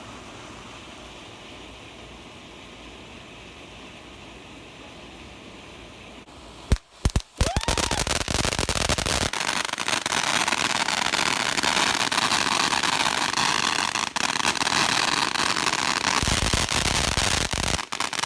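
A Taco Tuesday ground firework burning: a faint steady hiss at first, then a few sharp pops about seven seconds in, turning into loud, continuous crackling that runs on to the end.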